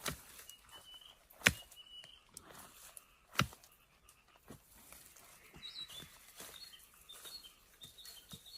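Digging in soil to unearth plant roots: a few sharp strikes, the loudest about one and a half and three and a half seconds in, with small birds chirping.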